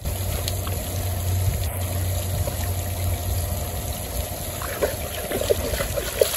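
Water trickling steadily with a low rumble underneath while a dog drinks, with a few short splashy sounds near the end.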